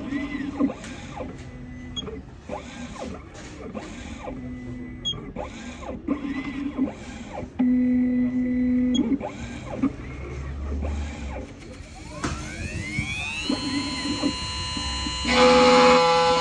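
CNC key-cutting machine's motors whirring in a series of short moves, each a brief steady hum that starts and stops. About twelve seconds in a motor spins up with a rising whine that levels off, and a louder, buzzing multi-pitched tone starts near the end.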